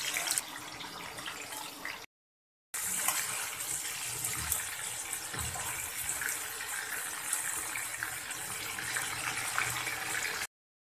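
Chicken and vegetable shashlik skewers shallow-frying in hot oil in a pan, with a steady sizzle and crackle. A few soft knocks come midway as a spatula shifts the skewers. The sound cuts out completely twice for a moment, about two seconds in and near the end.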